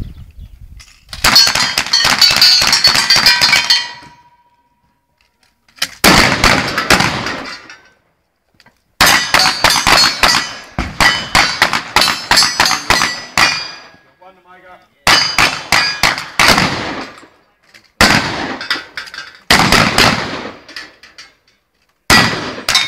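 Rapid gunfire from cowboy action firearms, with bullets clanging and ringing off steel targets, in a string of bursts separated by short pauses; one plate rings on with a fading tone after the first burst.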